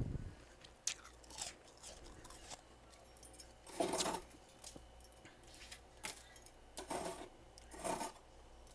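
A person biting and chewing freezer frost close to the microphone: a series of icy crunches, the loudest and longest about four seconds in, with more near the end.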